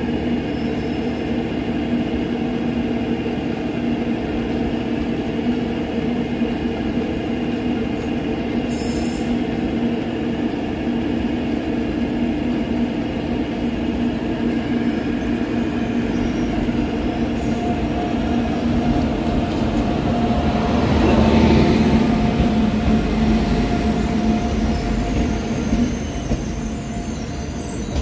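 Train running through the station: a continuous rumble of wheels on rail with steady tones over it, swelling to its loudest about three-quarters of the way through and then easing off.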